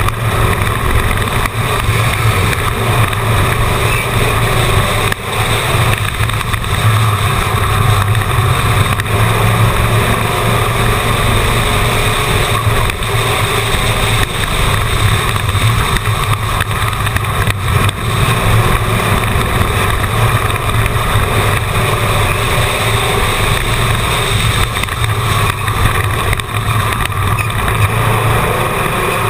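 Race car engine running hard at racing speed, heard on board: a loud, steady drone that never lets up.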